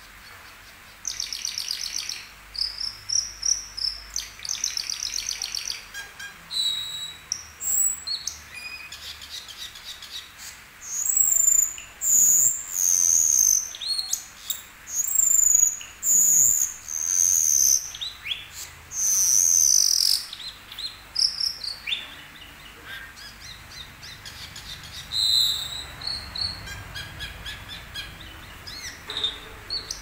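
Asian glossy starling (cucak keling) singing a busy, varied song with mimicked notes. Rapid buzzy trills come first, then loud high whistles that slide down in pitch, then shorter chips and clicks.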